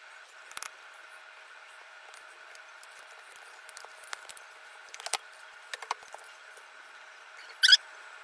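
A few small, sharp clicks and taps spread over a steady background hiss, with one brief, louder squeak near the end.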